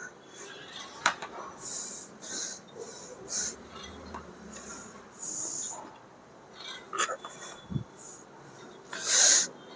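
Hard, forceful breathing of a man straining through cable chest flyes taken to failure: short hissing exhalations about a second or so apart, the loudest near the end. A couple of sharp clicks come about one and seven seconds in.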